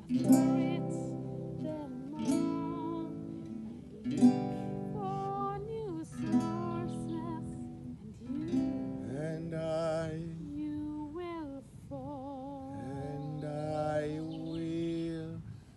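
Acoustic guitar struck in single chords about every two seconds, with a woman singing a slow melody over it. In the second half the voice holds long notes with a wide vibrato.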